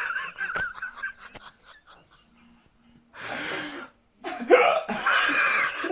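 Wheezy, high-pitched laughter that comes in breathless bursts, with a breathy burst about three seconds in and a louder squealing laugh near the end.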